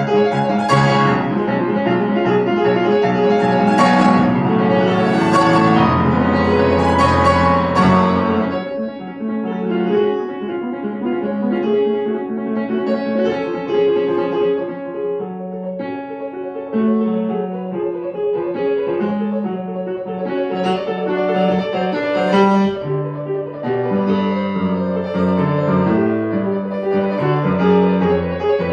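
Grand piano played solo in a fast classical passage. It is loud and dense with heavy bass for about the first eight seconds, then turns lighter and a little quieter.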